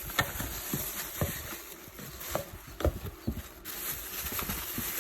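Plastic caps and parts of a steam inhaler being handled and set down, making scattered light clicks and knocks over a steady hiss.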